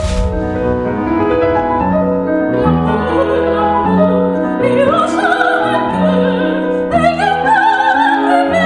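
Classical piano accompaniment. A few seconds in, an operatic singing voice with a wide vibrato comes in over it.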